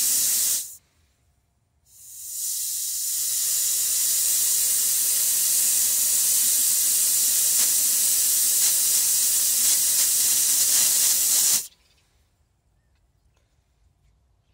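Propane hissing as it is transferred from a larger tank into a Flame King 1 lb refillable cylinder through its brass fill valve. The hiss drops out briefly about a second in, swells back and runs steadily for about ten seconds, then cuts off sharply as the flow is shut off with the cylinder 80% full.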